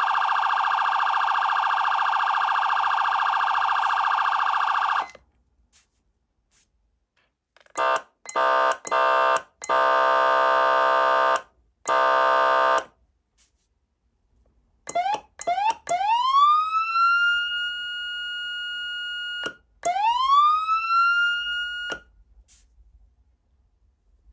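SoundOff Signal nERGY 400 electronic siren amplifier played through its speaker: a steady buzzy electronic air horn tone that stops about five seconds in, then about five short air horn blasts of varying length. Then the manual siren: a few quick blips, then a tone that rises and holds steady, cuts off, and rises and holds again.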